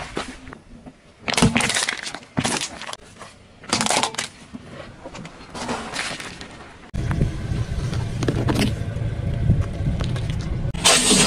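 Car tyre crushing objects on asphalt: a few separate crunches in the first half, then from about seven seconds a steady low rumble of the car rolling forward, with a loud crunch near the end.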